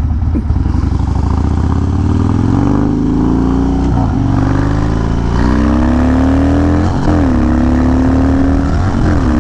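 Harley-Davidson Dyna V-twin engine under way, pulling through the gears: its note rises in pitch and drops briefly at each upshift, three times.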